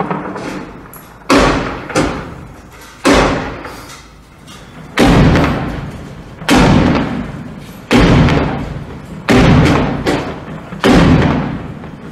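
Heavy gunfire in a battle: about eight loud single shots, roughly one every second and a half, each trailing off in a long echo.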